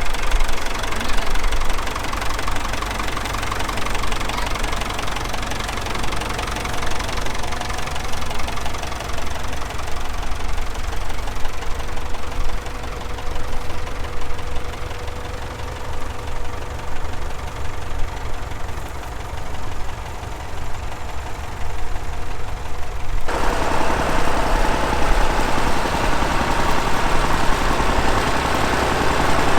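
Tractor engine running steadily under load, with a low, even pulsing. Its sound changes abruptly about 23 seconds in.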